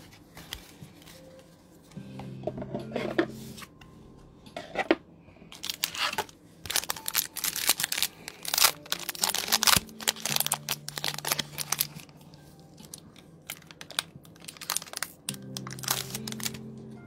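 Foil wrapper of a Pokémon TCG booster pack being torn open and crinkled. A dense run of sharp crackles comes in the middle, with a few shorter rustles around it.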